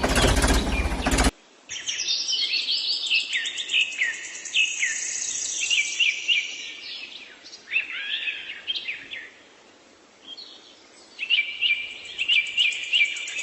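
A loud mechanical noise cuts off about a second in. Songbirds then chirp, a busy run of short, high, falling notes with a brief lull before they resume.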